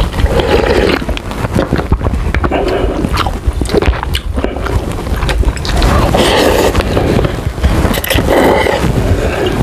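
Close-miked slurping of instant noodle soup: broth sipped from the cup, then noodles sucked up, in several noisy swells with a steady low rumble underneath.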